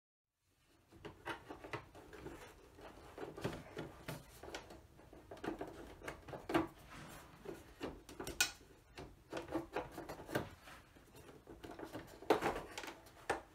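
Top case of a Yamaha digital piano being worked loose and lifted off: irregular clicks, knocks and rubbing of the casing, with a louder knock near the end.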